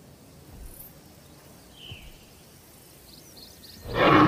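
Faint outdoor background with a few soft, high chirps. Just before the end, a loud dinosaur roar sound effect breaks in.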